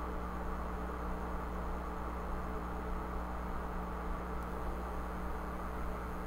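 Steady low hum with an even background hiss and no distinct events.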